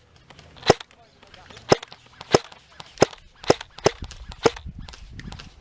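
Airsoft guns firing single shots: about seven sharp pops, unevenly spaced, with fainter ones in between.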